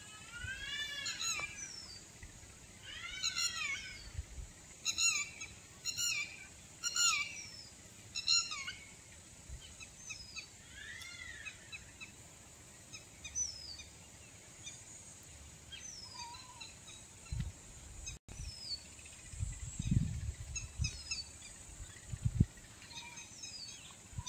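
A bird calling repeatedly outdoors: about seven arching calls in the first nine seconds, then scattered short, falling chirps. A few low thumps near the end.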